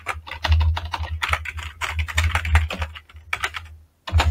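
Rapid typing on a computer keyboard, a quick run of keystrokes with a low thud under them, slowing to a few keys and stopping about a second before the end.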